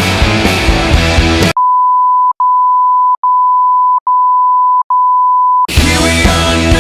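Rock music cuts off about a second and a half in and is replaced by a steady, single-pitch electronic beep tone, like a censor bleep, which is broken by four very short gaps. After about four seconds the beep stops and the rock music comes back.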